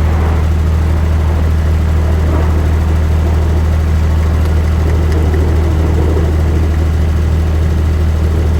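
Steady, loud low engine-like rumble that does not change in pitch or level.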